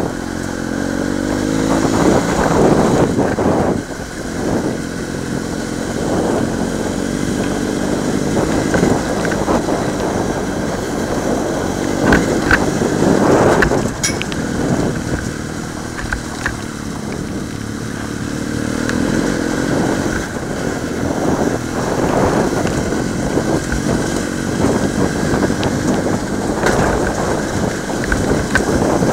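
BMW F800GS motorcycle's parallel-twin engine pulling up a rough dirt track, its revs rising and falling as the rider works the throttle, with the tyres crunching over loose stones and a few sharp knocks from stones about twelve to fourteen seconds in.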